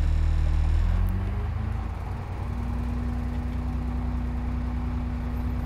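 School bus diesel engine idling, its note shifting and getting a little quieter about a second in, then a steady hum.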